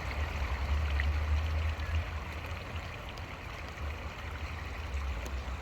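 Creek water running steadily, under a low, uneven rumble.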